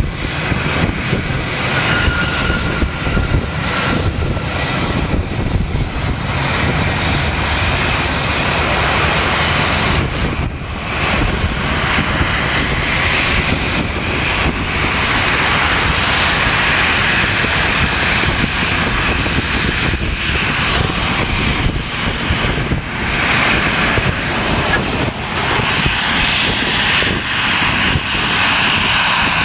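Airliner jet engines running on the ground: a steady low rumble with a hiss on top, which grows brighter over the last few seconds as a Boeing 737 taxis close by.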